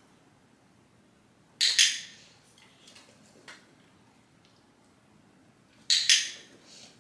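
A handheld dog-training clicker clicked twice, about four seconds apart, each a sharp double click. It marks the dog lowering its head in a head-dip (nod) trick.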